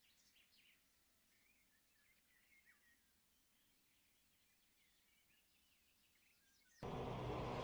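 Faint songbirds chirping, then loud music cuts in suddenly near the end.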